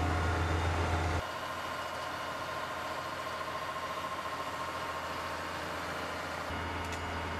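A heavy engine running steadily with a deep hum. The deep hum cuts off abruptly about a second in, leaving a quieter, higher-pitched running sound, and returns near the end.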